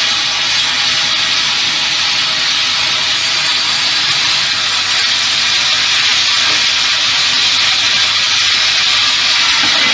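Steady, loud hiss like rushing air from a running automatic transformer-soldering machine.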